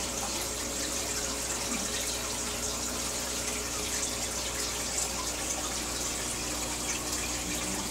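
Aquarium filter outflow pouring into the tank water, a steady splashing rush with a faint steady hum.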